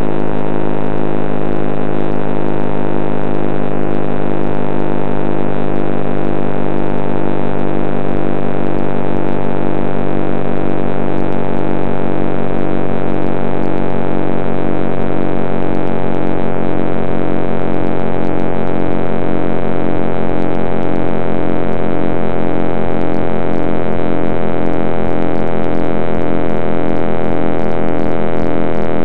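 Steady synthesized drone of many held tones, one of them pulsing evenly, the whole sound sinking slowly in pitch: a sonification of the cosmic microwave background.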